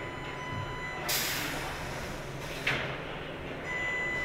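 Aircraft factory floor ambience: a steady background hum with a faint whine. Two short bursts of air hiss come about a second in and again near three seconds in.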